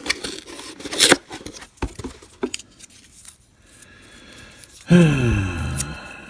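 Handling noises as the tool and loose parts are picked up and fitted by hand: a string of sharp plastic clicks and knocks. About five seconds in comes a short, louder sound that falls in pitch, and a faint steady whine runs under the last couple of seconds.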